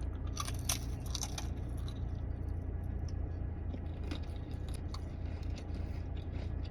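A person biting into and chewing a thin, crisp cracker dipped in peanut butter. There is a cluster of crunches in the first second or so, then quieter chewing with a few small crunches later, over a steady low hum.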